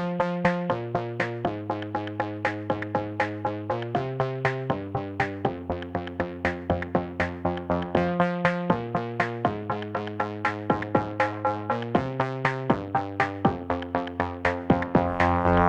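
Electronic background music: a fast, even beat of about four hits a second over sustained synthesizer chords.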